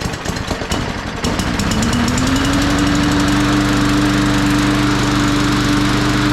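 Push mower's small gas engine starting right after its carburetor was cleaned and its stuck float needle freed: it sputters unevenly, catches about a second in, climbs in pitch and settles into a steady fast run.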